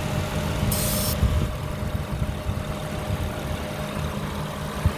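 Car engine idling steadily, with a short hiss of aerosol brake cleaner sprayed about a second in: a check for a vacuum leak, which the owner thinks he may be on to.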